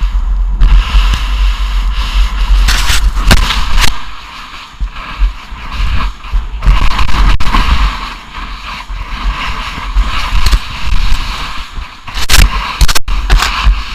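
Wind buffeting the action camera's microphone as it moves fast through deep powder snow, over the rushing hiss and scrape of snow spraying against it; the hiss swells several times and there are a few sharp knocks near the end.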